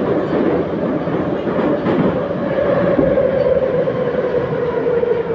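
Minsk metro 81-714.5 car running between stations: a steady loud rumble of wheels and running gear with a whine that slowly falls in pitch, and a couple of brief knocks from the track about two and three seconds in.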